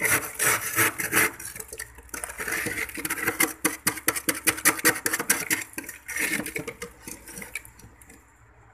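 A hand-held scraper scraping and chipping thick frost build-up off the inside wall of a freezer, in rapid irregular strokes with a crunching, clattering sound. The strokes die away near the end.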